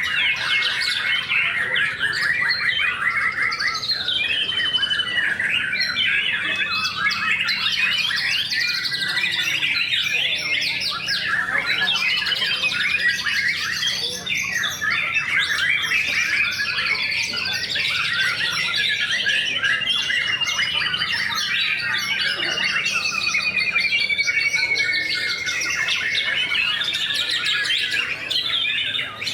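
White-rumped shamas (murai batu) in full contest song, several birds overlapping without a break. Fast, varied chattering phrases mix with drawn-out trilled whistles that slide down in pitch.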